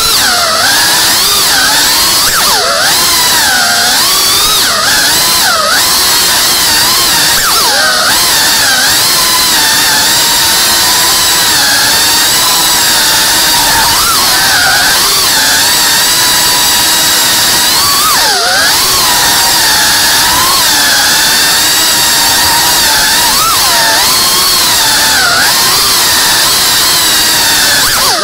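Small whoop FPV drone's electric motors and propellers whining steadily, the pitch swooping up and down constantly.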